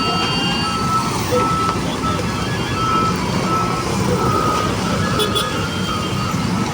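A construction vehicle's reversing alarm beeping steadily, about one beep every two-thirds of a second, over the low rumble of heavy machinery engines.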